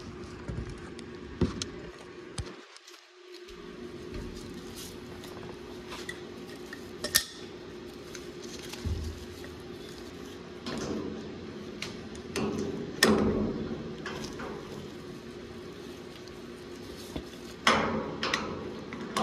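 Metal hand tools clinking and knocking against the steel canister and brass fittings of a Westwood F100-10 oil filter, in scattered sharp strikes with handling noise between them, over a steady hum.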